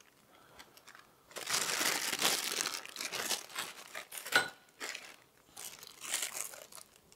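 Two nested plastic piping bags crinkling and rustling in short stretches as sticky potato dough is spooned into them, starting about a second and a half in, with a short clink about four seconds in.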